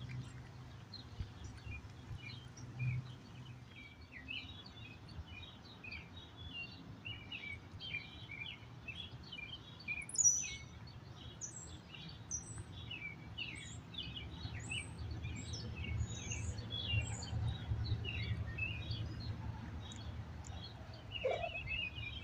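Wild songbirds chirping and singing continuously, with one sharp high chirp about ten seconds in, over a low rumble that grows stronger in the second half.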